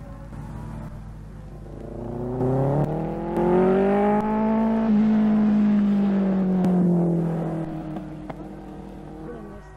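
Racing sidecar outfit's engine passing close at speed: its note climbs as it approaches, is loudest around the middle, then drops and fades as it goes by.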